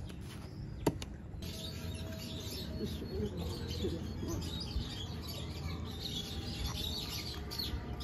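Small birds chirping busily, starting about a second and a half in, with one sharp knock about a second in from a hand hoe striking the dry soil.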